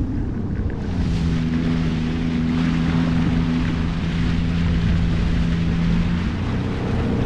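Jet ski engine running at a steady pitch, with a rushing hiss of water and wind setting in about a second in; the engine note shifts about six seconds in.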